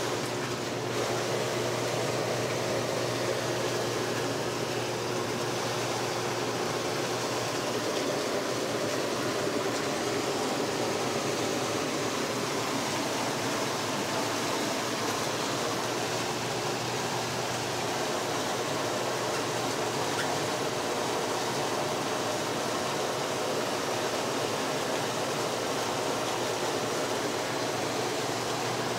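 Dynasty spa running: a steady rush of water over a constant low hum.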